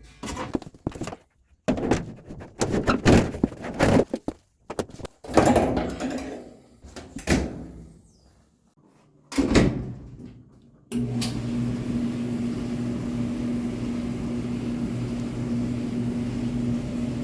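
Irregular clunks and knocks of panels or a door being handled. Then, about eleven seconds in, a clothes dryer starts and runs with a steady hum.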